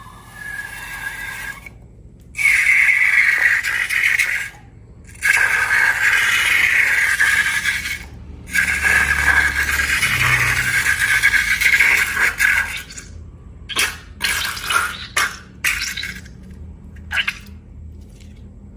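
Liquid slime ingredient pouring into a container in three long pours, followed by several short splashing drips near the end.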